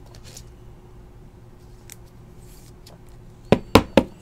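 Trading cards being handled on a table: three sharp clacks close together about three and a half seconds in, over a faint steady hum.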